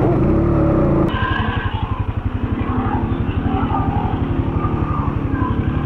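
ATV engine running steadily, then about a second in dropping to a lumpy, throbbing idle that pulses at roughly a dozen beats a second.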